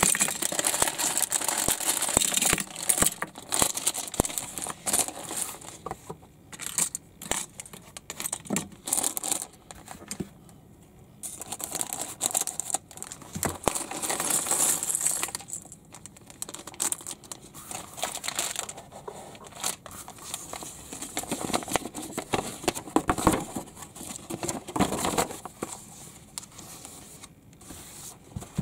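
Clear plastic parts bags crinkling as they are handled and emptied, with light clicking and clattering of small plastic building bricks tipping out onto the table.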